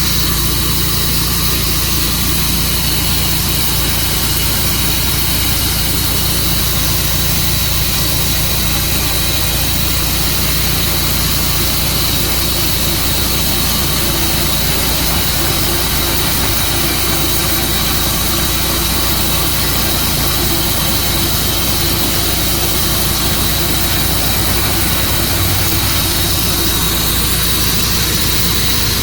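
Tru-Cut band sawmill running steadily, its engine and band blade going at a constant pitch, with a thin high whine over the engine's drone.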